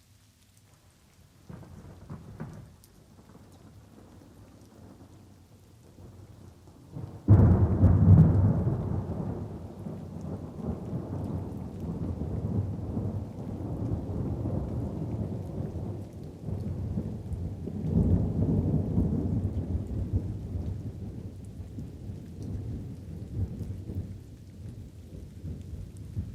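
Thunderstorm with light rain falling. A faint low rumble comes about two seconds in, then a sudden loud thunderclap about seven seconds in rolls on as a long rumble, swelling again later before dying down.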